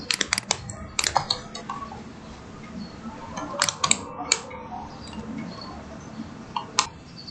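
Computer mouse clicking in quick little clusters of sharp clicks, as points are picked with the line tool in CAD software.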